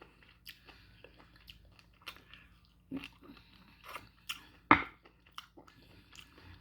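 Close-miked chewing of slow-cooked beef bone marrow and meat with lip smacking: scattered short wet clicks, with one louder mouth noise about three-quarters of the way through.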